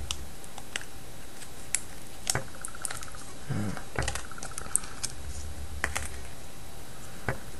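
Irregular small clicks and taps of a pry tool against the plastic housing of an HTC Inspire phone as a glued-down section is worked loose.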